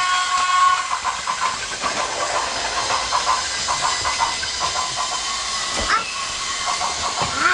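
Battery-powered Plarail plastic toy train running on its track, making a rapid, uneven clicking rattle over a steady hiss. A steady chord of tones stops about a second in.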